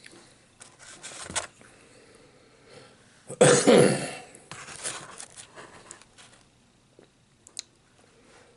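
A man coughs once, loudly, about three and a half seconds in, with a few small clicks from eating before and after.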